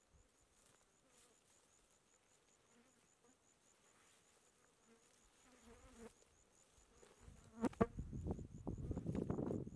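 Flies buzzing faintly close by, then, from about three-quarters of the way in, louder rustling and crackling of dry scrub with a sharp snap or two as a person pushes through the brush on foot.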